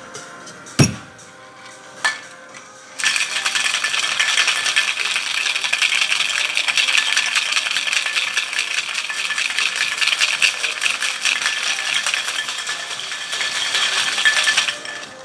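Two knocks as a stainless-steel cocktail shaker is closed, the first one loud, then ice rattling hard inside the shaker as it is shaken fast and steadily for about twelve seconds, stopping just before the end.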